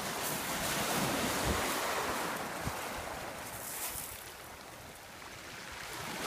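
Small waves breaking and washing up a shingle beach, swelling a second or two in, easing off about two-thirds of the way through and building again near the end. Wind buffets the microphone with a few low thumps.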